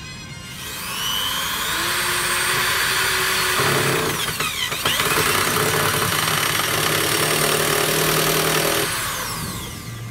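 Cordless drill-driver motor in two long runs, spinning up with a rising whine, slowing briefly in the middle, then winding down with a falling whine near the end, driving screws into wooden wall boards.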